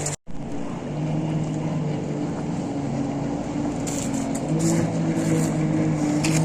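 An engine running steadily with a droning hum that steps up in pitch about four and a half seconds in.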